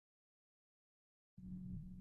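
Near silence: a completely silent gap, then a faint low steady hum from about a second and a half in.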